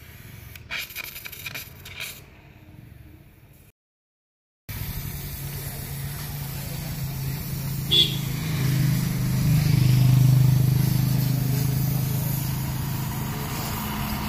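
Arc welding on a motorcycle exhaust: a steady electrical hum from the welding machine with a crackling hiss from the arc, swelling for a few seconds and then easing slightly, with one sharp click partway through. Before it come a few faint scrapes and clicks of tools on the exhaust fitting.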